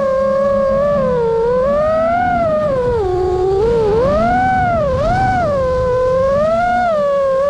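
5-inch FPV quadcopter's brushless motors on a 6S battery, whining with a pitch that rises and falls as the throttle changes: steady at first, dipping low around three seconds in, then swooping up and down twice before settling steady near the end. A low rushing noise runs beneath the whine.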